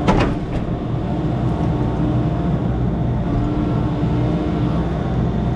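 Diesel engine of a piece of heavy equipment running steadily, with a sharp knock right at the start.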